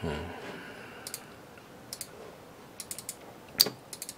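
Scattered clicks of a computer mouse and keyboard: a few single clicks, a quick cluster about three seconds in, and the loudest click about half a second later.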